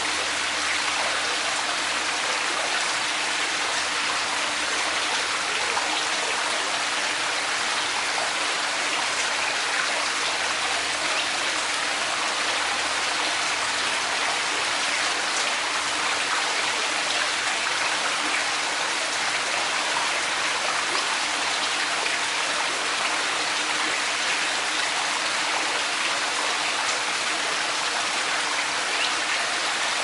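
Man-made rock pool waterfall running steadily: water falling in thin streams off a rock ledge and splashing into the pool, with a steady even splashing hiss.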